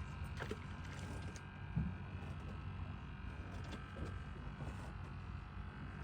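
Steady low hum of a fishing boat's motor running, with one short knock about two seconds in.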